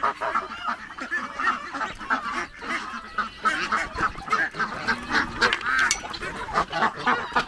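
Large farmyard flock of domestic ducks and geese, with chickens among them, calling over one another at feeding time: a continuous jumble of many short overlapping honks and quacks.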